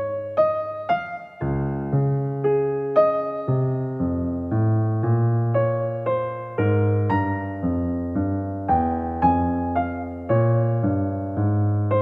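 Background piano music: a gentle melody of struck notes over held low notes.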